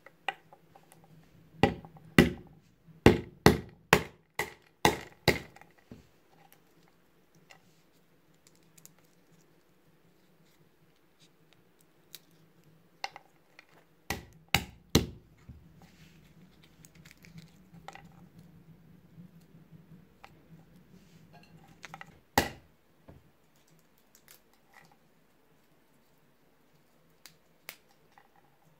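Walnuts being cracked on a wooden cutting board with a ridged metal-headed meat mallet: a quick run of about eight sharp knocks, a few more about halfway through, and one single knock later. Between the blows, broken shells crackle and click as they are picked apart by hand.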